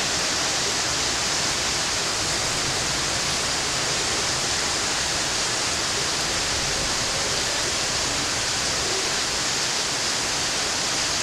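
Rain falling steadily, an even hiss with no thunder.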